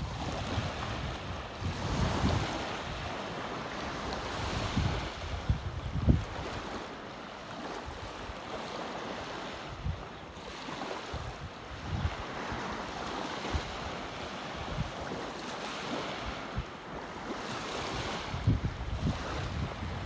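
Gentle sea surf washing steadily on the shore, with wind buffeting the microphone in short low rumbles.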